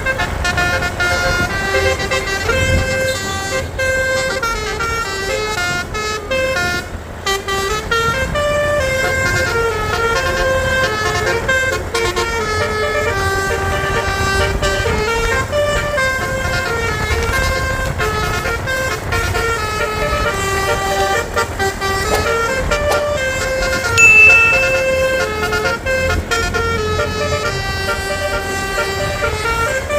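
Bus telolet horn (Basuri multi-tone air horn) playing a continuous tune of stepped tones that rise and fall, over a low engine rumble. About 24 seconds in, a brief, louder high-pitched tone sounds.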